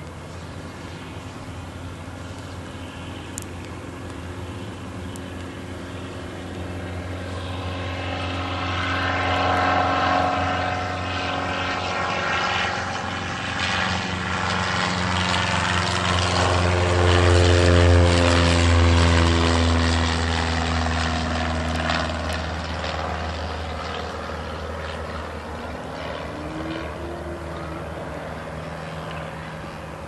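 Cessna 150 light aircraft's four-cylinder Continental O-200 engine and propeller at full power on takeoff, growing louder to a peak a little past halfway, its pitch falling as it goes by, then fading as it climbs away.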